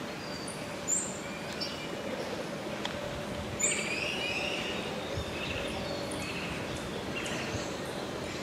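Mixed chorus of wild birds: many short, high chirps and whistles from several birds overlapping, over a faint steady drone.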